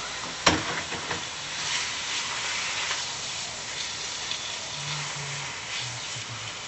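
Steak sizzling in a frying pan, a steady hiss, with a sharp clank about half a second in and a few lighter knocks just after.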